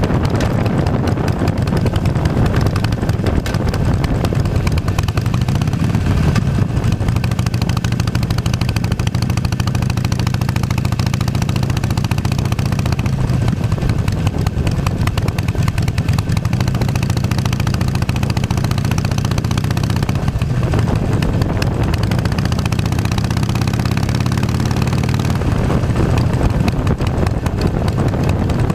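2008 Harley-Davidson Nightster's 1200 cc air-cooled V-twin running under way, its pitch shifting up and down several times as speed changes.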